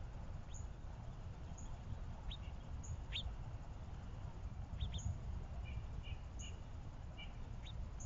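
Small songbirds giving short, scattered chirps over a steady low rumble. A faint high tick repeats about once a second.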